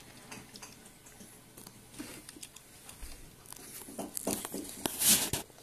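Light clicks and knocks of plastic toy train cars being handled and fitted together, with a short, louder rustle near the end.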